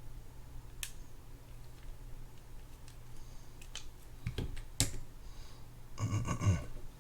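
Small metal spinning-reel parts and tools clicking and clinking as they are handled during disassembly: a few scattered clicks, two sharper clicks about two-thirds through, then a short jingling clatter near the end.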